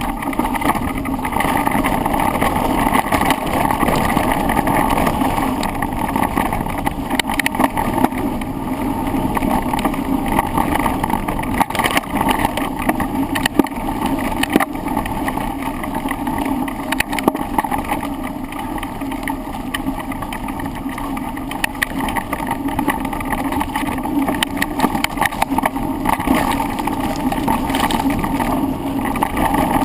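Ride noise picked up by a handlebar-mounted camera: a steady rumble of tyres and wind with frequent sharp knocks and rattles as the bars are jolted over bumps.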